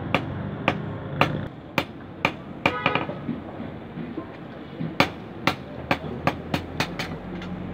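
Blacksmith's hand hammer striking a sickle blade held in tongs on a small anvil, forging it at about two blows a second. After a pause of about two seconds, a faster run of blows speeds up near the end.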